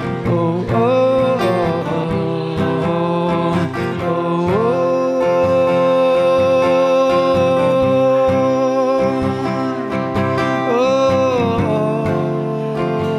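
A man singing live to his own strummed acoustic guitar, holding one long note through the middle, then a shorter wavering note near the end.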